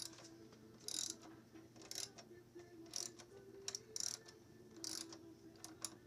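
Hand ratchet clicking in short strokes, about one stroke a second, as it turns a fastener at a motorcycle's front wheel axle.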